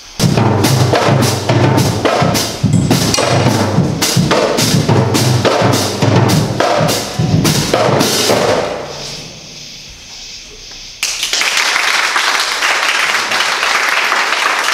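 Marching-band drums playing a steady beat, with bass drum and snare strokes, for about nine seconds, then dying away. About eleven seconds in, clapping and cheering break out suddenly.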